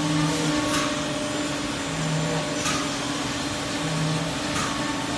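Two-head CNC mortising and drilling machine running: a steady motor hum, with a lower tone that comes in for about half a second roughly every two seconds and a few short hisses.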